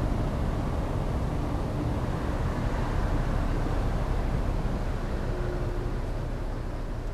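Car ferry Kuniga's diesel engines running as it manoeuvres, a steady low rumble that slowly fades near the end.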